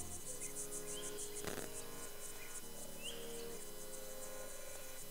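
Crickets trilling in fast pulses, about eight a second, with short rising chirps now and then and a single knock about a second and a half in.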